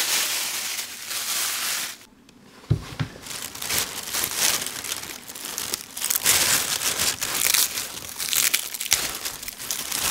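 Tap water running into the steel sink for about two seconds, then a short gap and a knock. After that, a thin plastic bag crinkles and rustles while hands pull whole garlic bulbs off a dried bundle inside it.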